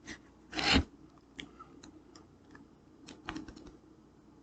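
Scrapbook pages being handled: a short paper rustle a little over half a second in, then scattered light clicks and taps.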